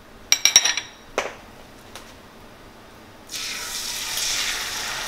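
A few short ringing clinks of dishware, then about three seconds in, beaten eggs hit a hot buttered frying pan and start sizzling steadily.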